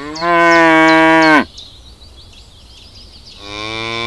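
A cow mooing: one long, loud moo that ends about a second and a half in, then a second moo starting near the end.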